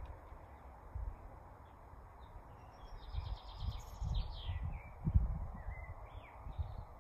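Small birds chirping in the background, with a quick trill about three seconds in and a few short calls after, over a steady hiss. Soft low thumps come and go throughout.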